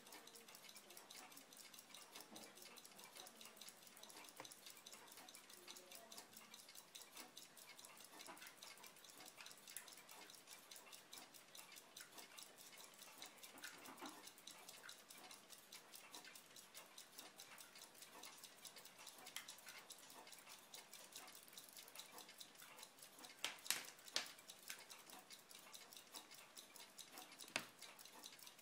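Near silence with faint, rapid, even clicking throughout, and a few sharper clicks about two-thirds of the way through and once more near the end.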